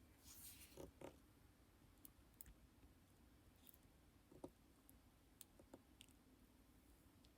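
Faint lipstick sounds close to the microphone: a short soft smearing in the first second, then a few scattered small sticky clicks.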